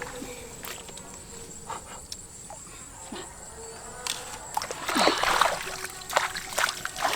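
Water splashing and sloshing in irregular bursts that start about four and a half seconds in and grow louder, over a steady high-pitched insect drone.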